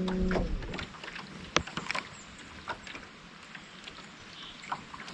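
A boat's electric trolling motor humming steadily, cutting off about half a second in, followed by scattered light clicks and knocks around the boat.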